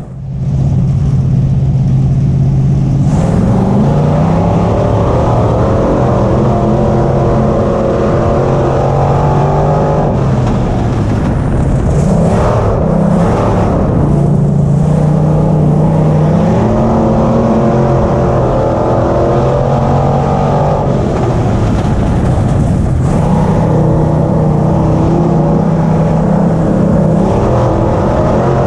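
Limited modified race car's V8 engine heard from inside the cockpit, running at part throttle on a slow caution lap. Its pitch steps up and down several times as the throttle is opened and eased.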